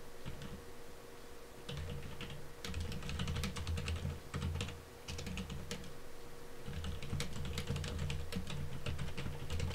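Typing on a computer keyboard: quick runs of key clicks, a pause of about a second and a half near the middle, then more typing. A faint steady hum lies underneath.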